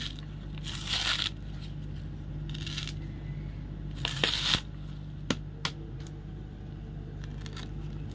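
Coconut husk being pried and torn off with a machete: a few short tearing rasps of fibre, then two sharp knocks of the blade a little past halfway, over a steady low hum.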